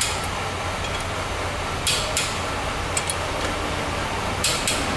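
Torque wrench clicking twice, about two seconds in and again near the end, as wheel bolts reach their set torque, over a steady low hum.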